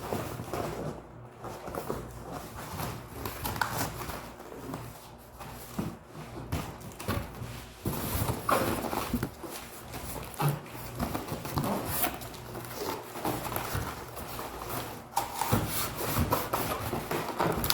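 Styrofoam packing and cardboard being handled while a sewing machine is taken out of its box: irregular knocks and rubbing, with short squeaks of foam rubbing on foam or cardboard.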